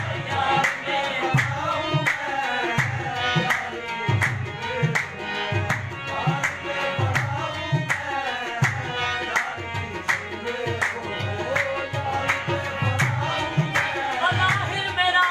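A qawwali-style ensemble performing a ghazal: male singing over harmoniums, with a tabla keeping a steady beat.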